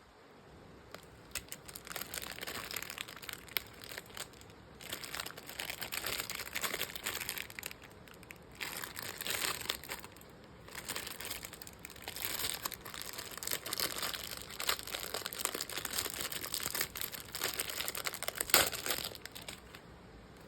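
Plastic packaging crinkling and crackling in irregular bursts with short pauses as it is handled, with one sharper, louder crackle near the end.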